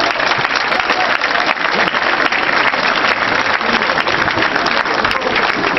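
Large crowd applauding: dense, steady clapping.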